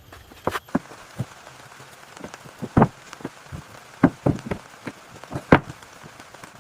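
Irregular knocks and taps, with louder ones about three, four and five and a half seconds in, over a faint steady hiss.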